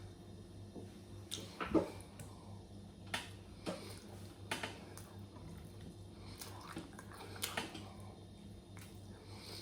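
Close-up eating sounds of someone eating beans: short wet smacks and clicks of chewing and mouth sounds, scattered a second or so apart, over a steady low hum.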